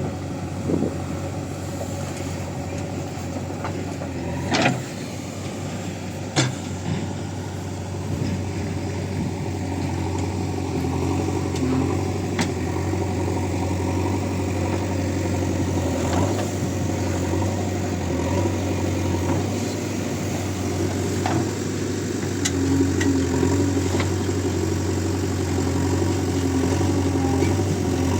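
Backhoe loader's diesel engine running steadily, with occasional sharp knocks, the two loudest about five and six and a half seconds in.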